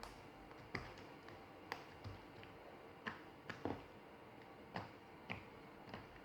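Small ball of homemade fluffy PVA-glue slime being stretched and kneaded by hand, giving faint, irregular little clicks and pops, about nine or ten of them.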